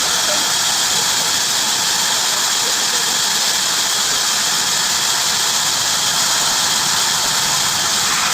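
Heavy-duty bandsaw cutting through wood, a steady, loud, high-pitched hiss.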